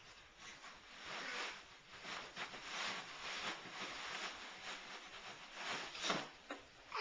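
A small boy jumping about and making noises: a run of short, noisy, unpitched bursts, with a louder one about six seconds in.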